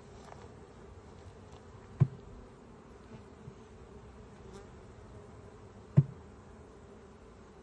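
Honeybees buzzing steadily around an open hive, with two sharp knocks about four seconds apart as a wooden hive frame is tapped to jar small hive beetles off it.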